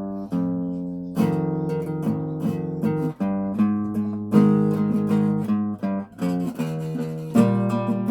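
A guitar being played, plucked notes and chords each struck sharply and ringing on. An opening chord sustains and fresh notes follow steadily from about a second in.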